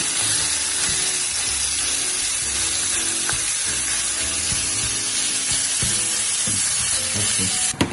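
Minced beef sizzling steadily in hot oil in a stainless steel pan while a spatula stirs and breaks it up. The sizzle cuts off suddenly with a click near the end.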